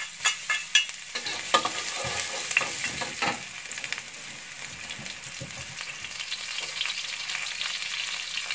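Minced garlic sizzling in hot oil in a wok while a metal spatula stirs and scrapes it against the pan. A few sharp clicks come in the first second; after that the sizzle is steady.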